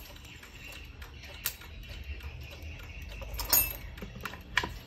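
Vedette chiming clock movement having its chime mainspring wound with a crank key: scattered metallic clicks from the winding ratchet and the key, with a louder cluster of clicks about three and a half seconds in.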